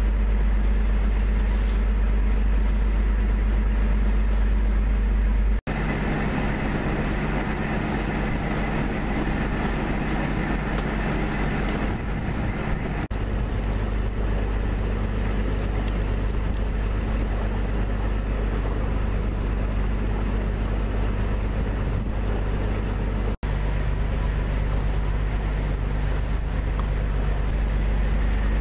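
A houseboat's engine running steadily with a low, even hum, heard from on deck while cruising. The hum drops out for an instant three times and changes slightly in tone after each break.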